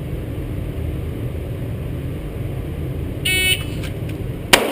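Shot-timer start beep, one short high electronic tone, followed about a second later by the sharp crack of a Glock 17C 9mm pistol fired from a fast draw.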